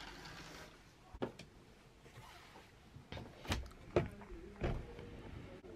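Curtains being drawn open by hand, with a few light clicks and knocks from the curtain rail and handling, most of them about three to five seconds in.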